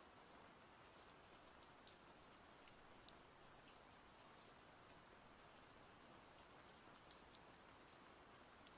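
Faint steady rain, a soft hiss with scattered drops ticking here and there.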